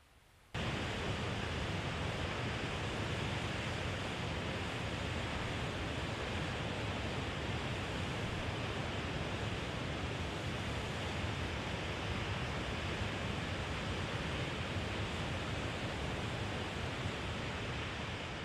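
Steady rushing noise of ocean surf, cutting in suddenly about half a second in and beginning to fade near the end.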